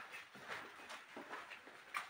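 Footsteps on a gritty floor, about two steps a second.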